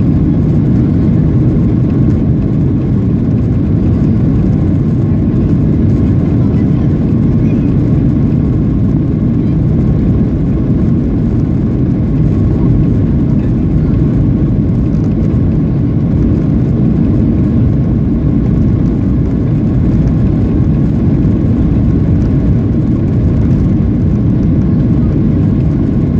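Steady low rumble inside the cabin of a Boeing 737-800 taxiing on the ground, its CFM56-7B engines running at low thrust.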